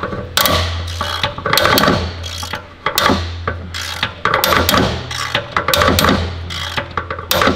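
Hand ratchet clicking in irregular runs as it is worked back and forth on a tight, dirty wheel-bearing bolt, over a steady low hum.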